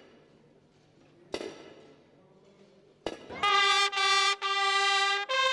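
A single sharp clink with a short ring about a second and a half in. Then, after about three seconds, a Holy Week procession's bugle band comes in loud with held brass notes in short phrases, stepping up in pitch near the end.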